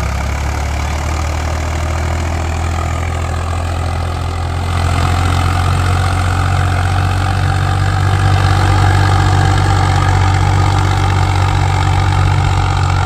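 Swaraj 843 XM four-wheel-drive tractor's three-cylinder diesel engine running steadily under load, pulling a heavy disc harrow through hard soil. It gets louder about five seconds in.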